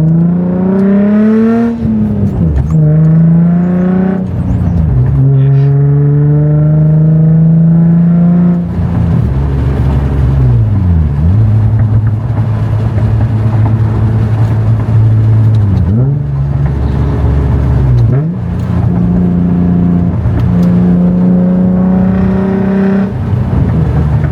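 Nissan 350Z's VQ35DE V6 through a Henko Y-pipe exhaust, pulling up through the gears with several shifts, then cruising with a few more gear changes. The exhaust note is deep, with no hiss now that the Y-pipe leak is sealed with a thick gasket.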